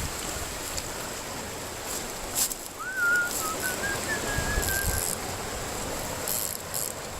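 A bird's thin, wavering whistled call lasting about two seconds near the middle, over a steady background hiss.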